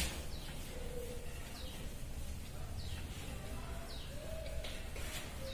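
Birds calling in the background: short falling chirps repeat every second or so, with soft low cooing calls in between, over faint steady room noise.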